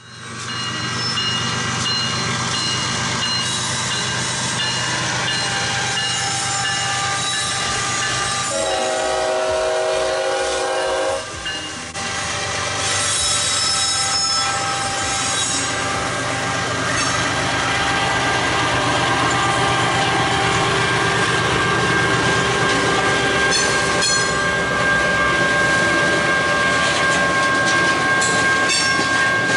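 BNSF diesel freight train passing close by: locomotives and then freight cars rumbling past, with clicking wheels and steady high-pitched tones over the noise. About eight and a half seconds in, the locomotive horn sounds one chord blast of roughly three seconds.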